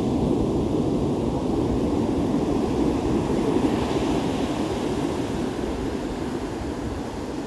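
Ocean surf washing onto a beach: a steady low rush of water, swelling briefly about four seconds in as a wave breaks, then easing off.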